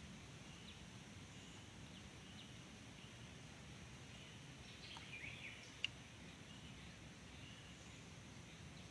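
Near silence: faint outdoor ambience with soft, high bird chirps every second or so, a short flurry of chirps about five seconds in, and one sharp click just after it.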